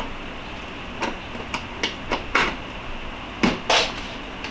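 Gear sets and shift forks of a K-series manual transmission being wrestled into place in the gearbox case: a series of sharp metal clicks and knocks, the loudest two about three and a half seconds in.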